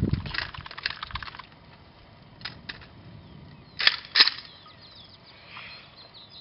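Two rifle shots a third of a second apart, a little under four seconds in, the loudest sounds, heard from some distance. Fainter cracks come in the first second or so and again about two and a half seconds in.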